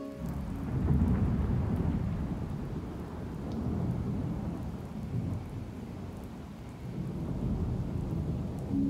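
Rain and thunder ambience: a steady hiss of rain over low rolling rumbles, with no music notes until musical notes come back right at the end.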